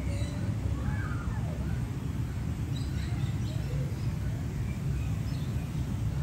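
Outdoor background with a steady low rumble, a falling animal or bird call about a second in, and a few short, faint bird chirps later.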